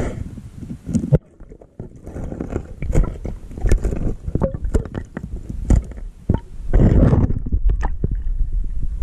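Handling noise on a GoPro Hero 5 action camera: fingers rubbing, gripping and knocking on the camera body, giving a run of scrapes and clicks over muffled rumbles. It is loudest for about a second near the end.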